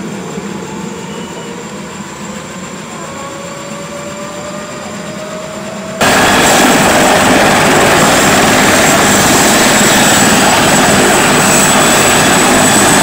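Helicopter running on the ground with its rotor turning: turbine noise with a faint, slowly rising whine. About halfway through it jumps abruptly much louder and rougher, with a steady high-pitched whine.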